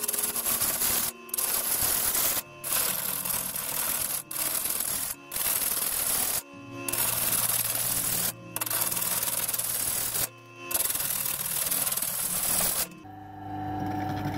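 Bowl gouge cutting into a spinning glued-up sapele blank on a wood lathe, roughing off the corners of the still out-of-round blank: a harsh scraping hiss in about eight passes of a second or two each, with short breaks between. About 13 seconds in the cutting stops, leaving the lathe's low hum.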